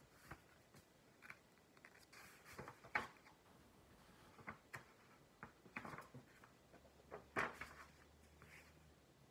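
Paper pages of a picture book being turned and handled: faint scattered rustles and soft clicks, the loudest about three seconds in and again about seven seconds in, against near silence.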